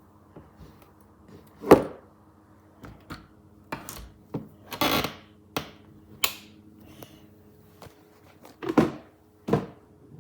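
Irregular knocks and clicks, with a few louder thuds about two seconds in and near the end, over a faint steady hum.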